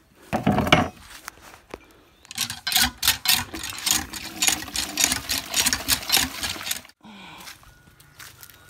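Hand pump being worked, its water gushing from the spout into a plastic bucket in rhythmic pulses, then stopping abruptly about seven seconds in. A short pitched call sounds about half a second in.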